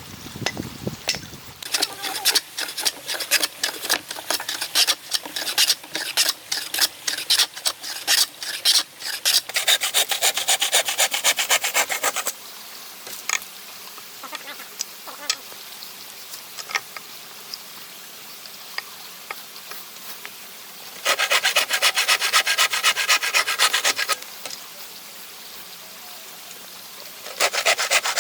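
A hand tool working a wooden board: irregular scraping strokes at first, then three bursts of fast, even rasping strokes a few seconds long, with quieter stretches of light scraping between them.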